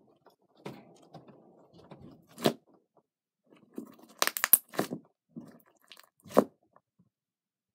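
A thick, stiff green slime is stretched and then pressed and kneaded by hand against a tabletop. Soft squishing gives way to sharp crackling pops of trapped air. The pops are loudest in a quick cluster about four seconds in and stop about a second before the end.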